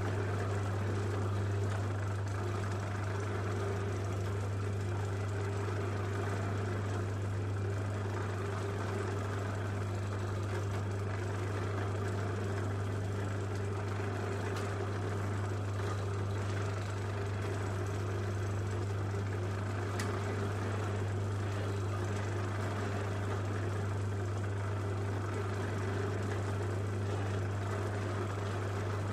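Electric motor running steadily with a strong, even low hum that holds unchanged throughout.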